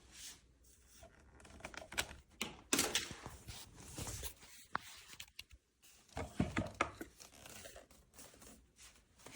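Irregular crinkling and rustling with scattered knocks and clicks, the sound of something being handled by hand, loudest in two spells a few seconds apart.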